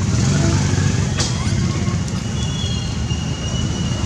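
Steady low outdoor rumble, with a sharp click about a second in and faint thin high-pitched tones in the second half.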